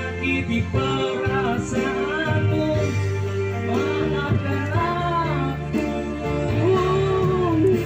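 A song sung over instrumental backing, the voice holding long notes that waver in pitch.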